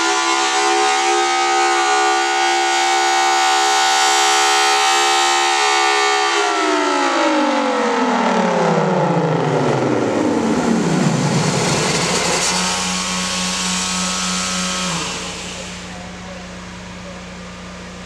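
Federal Signal Thunderbolt 1000T rotating outdoor warning siren holding a steady wail. About six seconds in it winds down, its pitch falling away over several seconds, and a low steady hum lingers and fades near the end.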